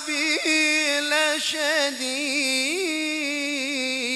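A man's voice chanting Quran recitation (qiro'ah) in a melismatic style, stretching the word 'adhabi' over quick wavering ornaments, then rising and falling once and settling into a long held note near the end.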